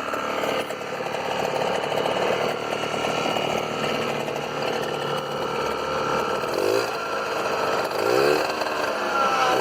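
A small engine running steadily, revved briefly three times in the second half, each rev a short rising pitch.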